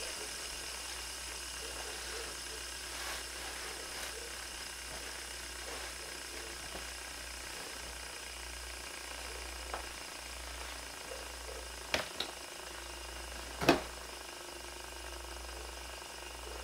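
Fidget spinner coasting on its bearing on a countertop after a single flick, a faint steady whir. A few faint clicks come about ten to twelve seconds in, and a louder knock shortly after.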